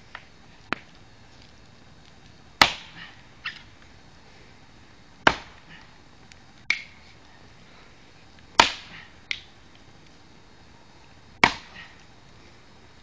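Axe chopping into wood: four heavy strikes about three seconds apart, each followed within a second by a fainter sharp crack.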